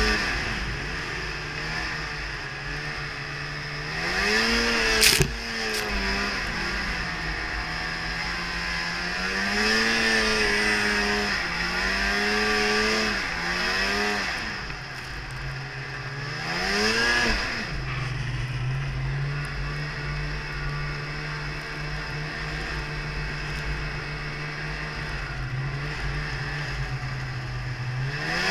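Polaris Indy Trail 500 snowmobile's two-stroke engine, heard from the rider's seat, revving up and easing off several times as it pushes through powder and drifts. It then holds a lower, steady note for the last ten seconds before rising again at the end. There is one sharp knock about five seconds in.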